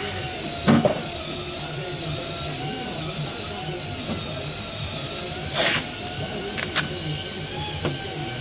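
Workshop background with a steady low hum, broken by a few short knocks and clatters, the loudest about a second in and another near the middle.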